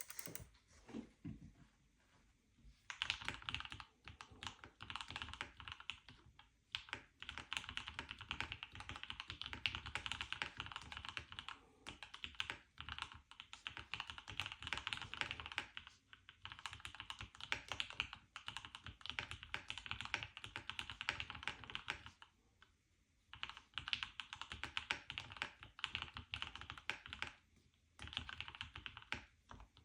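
Typing on a Keychron Q1 Pro mechanical keyboard with Gateron Oil King linear switches: fast, continuous keystrokes in runs of several seconds, starting about three seconds in, with short pauses between runs.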